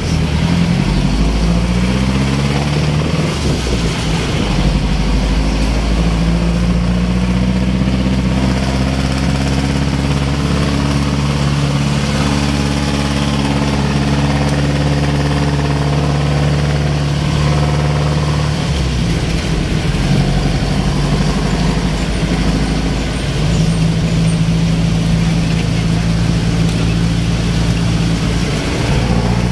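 Jeepney's diesel engine heard from inside the passenger cabin, its pitch rising as it pulls away, then running at a steady note as it drives, with a shift in the note about two-thirds of the way through.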